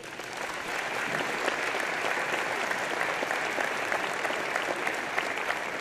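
Audience applauding, many hands clapping in a dense, even patter that builds over the first second, holds steady, and eases off near the end.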